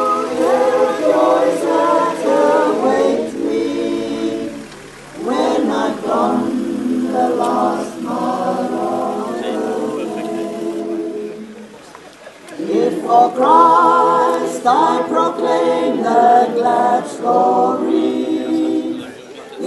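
A group of people singing a hymn together without accompaniment, in long held phrases with short breaks about five and twelve seconds in.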